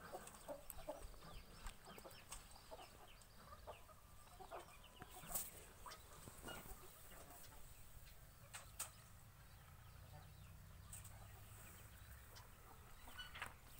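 Faint background of short bird calls, clucking and chirping, with two sharp clicks about halfway through.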